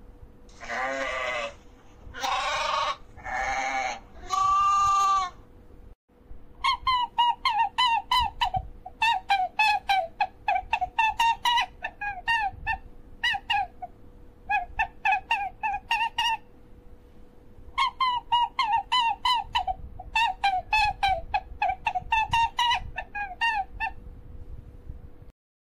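A sheep bleating four times in the first five seconds. After a brief break, rapid high-pitched chirping follows in runs of about two seconds with short pauses, many notes a second, for the rest of the time.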